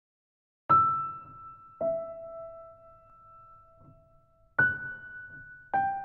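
Slow solo piano music: four single notes struck one at a time and left to ring and fade, in two pairs, each a higher note followed about a second later by a lower one.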